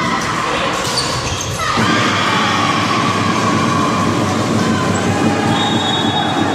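Crowd of spectators cheering and shouting in an echoing sports hall, with high-pitched held yells.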